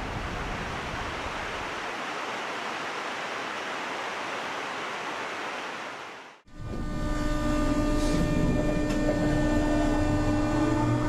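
A steady rushing noise that fades out about six seconds in. After a short gap, an electric train's motors hum with several steady tones, and a whine begins rising in pitch near the end as the train accelerates.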